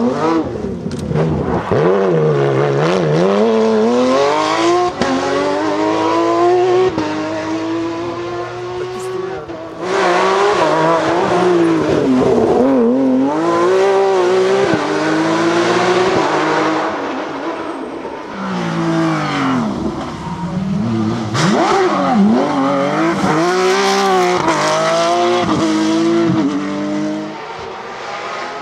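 Porsche rally car engine revving hard, its pitch climbing through the revs and dropping sharply again and again as it shifts gear and lifts for corners.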